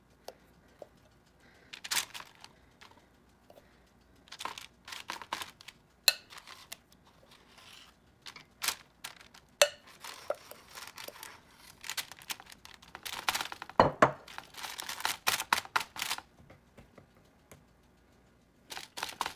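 Marinated chicken pieces being handled and laid onto a parchment-lined baking pan. Intermittent crinkling of parchment paper and light clicks and knocks come with quiet gaps between them, the loudest a sharp knock about two-thirds of the way through.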